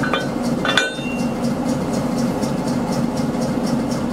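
A diesel engine idles steadily, with a regular light ticking. Twice in the first second, the louder about a second in, there is a sharp metallic clink from a railway coupling being handled between the buffers.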